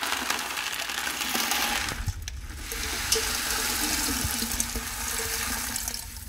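Crushed metallurgical slag, lumps under 25 mm, poured from a plastic bucket into a water-filled stainless steel chamber: a steady rattling of stones sliding out and splashing into the water, which stops near the end.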